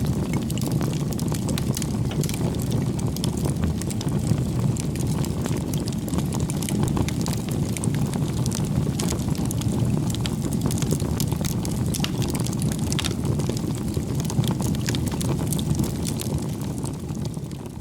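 Steady low rumble of wind on the microphone, with many small scattered clicks and crackles; it fades out near the end.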